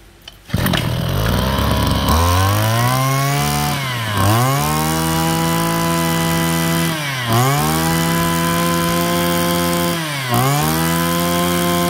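Mitsubishi TL261 two-stroke brush cutter engine starting about half a second in, then revved up and held at high speed. The throttle is let off and opened again three times, each a quick dip and rise in pitch. It is a test run of a used engine that starts readily and runs cleanly.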